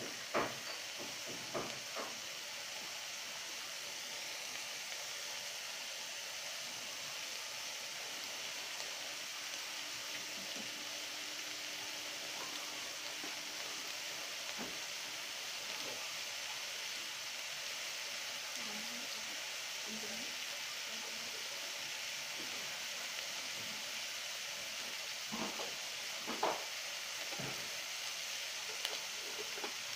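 Chicken breast pieces and dried oysters sizzling steadily as they dry-fry without oil in an aluminium pot, with a couple of brief sharper sounds near the end.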